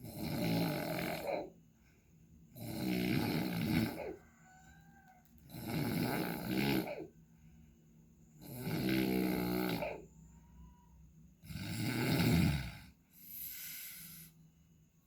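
A person snoring loudly, like a racing exhaust: a snore about every three seconds, five in all, with a softer, breathier one near the end.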